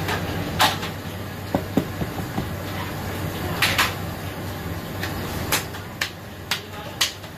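A man clapping his hands, slow and even at about two claps a second from about halfway through, after a few scattered sharp claps earlier, over the steady low hum of a commercial kitchen.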